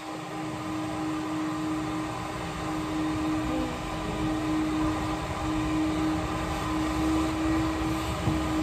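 A motor running with a steady hum, holding one constant low-pitched tone over an even rush of noise.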